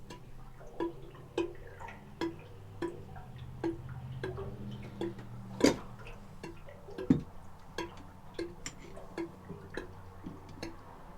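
Water dripping steadily from the broken pump-house plumbing, short plinks about every 0.7 s. Two louder knocks come a little after the middle.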